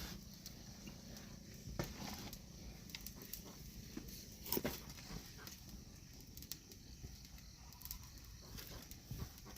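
Faint scattered knocks and clicks over a low steady background, with the two clearest knocks about two seconds and four and a half seconds in.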